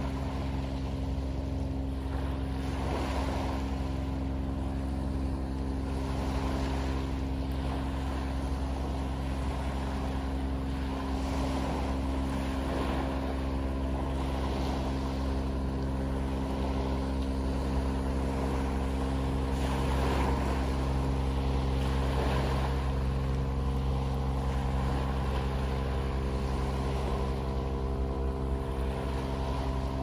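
A boat's engine running steadily, a low even drone with a hum of several tones. Small waves wash onto a pebble beach over it every couple of seconds.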